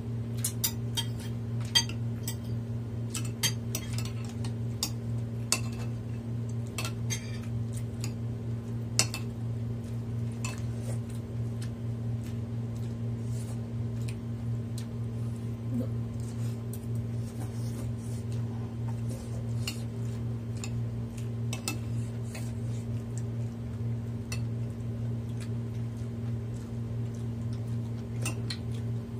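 Spoon and fork clinking against dishes while eating: light scattered clinks, busiest in the first ten seconds, over a steady low hum.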